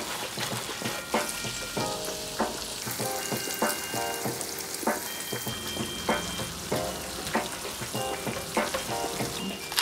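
Potato gnocchi and peas sizzling in a hot frying pan as cream goes in and they are stirred with tongs, with scattered light taps.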